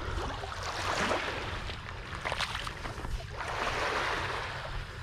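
Shallow water sloshing and rushing in two swells, with wind rumbling on the microphone.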